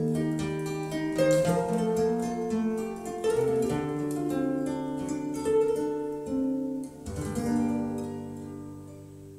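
Instrumental music with plucked notes played through a pair of Dali Zensor 1AX active bookshelf speakers as a listening sample. A last chord comes in about seven seconds in and slowly fades away.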